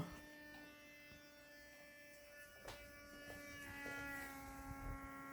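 A new plastic window humming faintly as wind blows through it: a steady drone of several stacked tones that shift slightly in pitch a little past halfway. The owner puts it down to a draught getting through gaps that were not properly foamed behind the plastic reveals.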